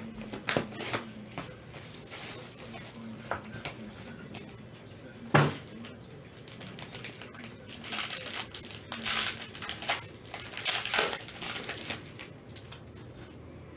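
Foil wrapper of a trading-card pack crinkling in gloved hands in scattered bursts, thickest near the end. One sharp knock about five seconds in.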